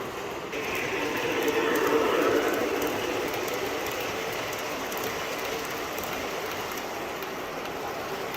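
MTH O-scale model R-40 Slant subway train running between stops: a steady rail rumble and rushing noise, partly from its onboard sound system, that swells louder in the first few seconds, with faint light ticks.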